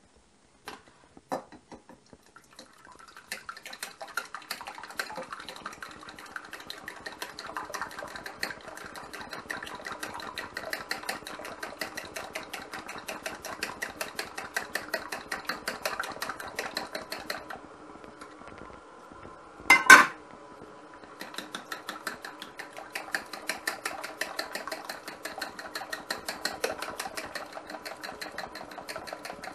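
A kitchen utensil striking the inside of a bowl in fast, even strokes, as in whisking or mixing. It stops for a few seconds, gives one loud clatter, then starts again.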